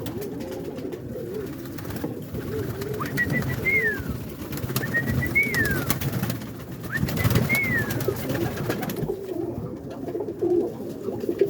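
A loft of roller pigeons cooing together in a continuous low murmur, with scattered light clicks. Three high whistled notes come in the middle, about two seconds apart, each rising and then sliding down.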